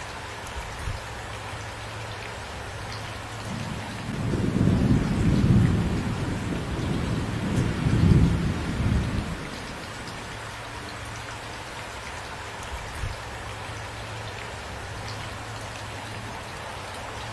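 Steady rain falling, with a roll of thunder rumbling in about four seconds in. The thunder swells twice, then dies away before the ten-second mark.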